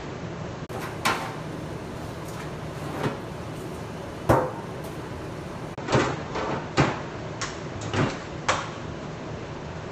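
About eight scattered knocks and clunks over a steady background hiss, like a cupboard or drawer being handled, the loudest about four seconds in.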